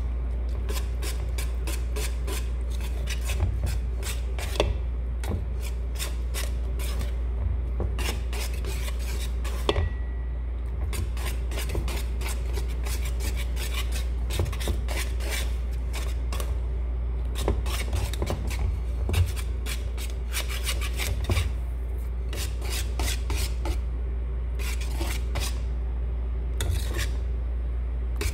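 A utensil scraping and clicking against a mixing bowl in quick strokes as pancake batter is stirred, in spurts with short pauses, over a steady low hum.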